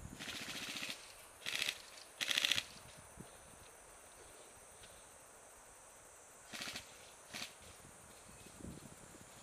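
Full-auto airsoft gun fire in short bursts of rapid shots: a longer burst in the first second, two more a moment later, then two short bursts about six and seven seconds in.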